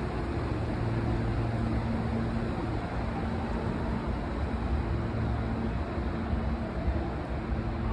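Steady train-station platform ambience: an even wash of noise with a low hum that swells and fades.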